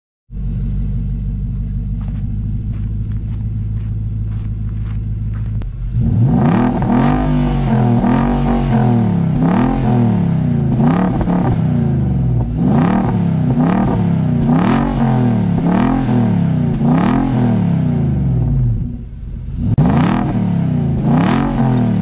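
Nissan Y62 Patrol's 5.6-litre V8 running through a Pacemaker exhaust with only a centre muffler and secondary-cat delete pipes. It idles steadily for about five seconds, then is revved in repeated throttle blips about once a second, each climbing and falling in pitch, with a brief lull near the end.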